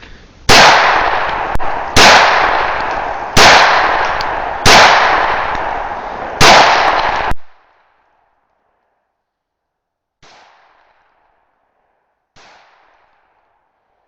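Glock 17 9mm pistol firing five shots, spaced about a second and a half apart, each report ringing on for over a second. Two much fainter sharp bangs follow, about two seconds apart.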